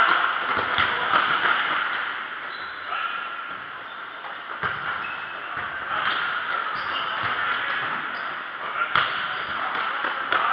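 Indoor futsal game in a large echoing hall: the ball struck a few times with sharp thuds, shoes squeaking briefly on the court, and players calling out in the background.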